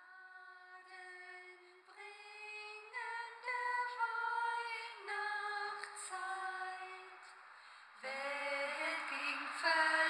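Music: a woman's voice singing a slow, unaccompanied melody of held notes. About eight seconds in a second, lower part joins and it gets louder.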